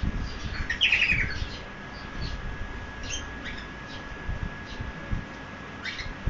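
Cockatiel chirping: a quick run of high chirps about a second in, then a few scattered short chirps, over low rustling.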